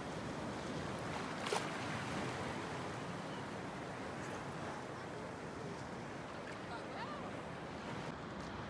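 Shallow seawater washing and lapping steadily around someone wading, with one short knock or splash about one and a half seconds in.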